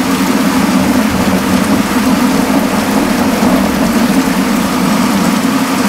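Heavy rain pouring steadily onto a flat rooftop and the surrounding foliage, a loud, even hiss without a break.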